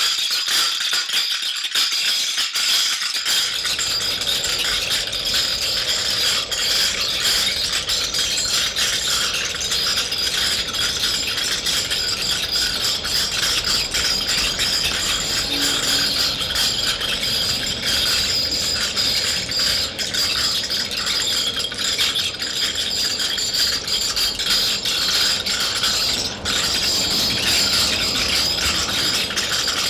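A steady, dense rattling made of countless small, hard clicks, even in level throughout.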